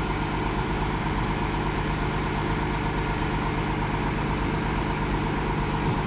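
Large transit bus idling at the stop: its engine gives a steady, even low sound, with a fainter steady higher whine above it.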